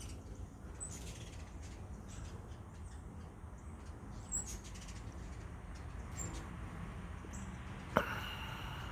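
Faint outdoor ambience with a low steady rumble, broken by a few short, very high hummingbird chirps. A single sharp click comes near the end.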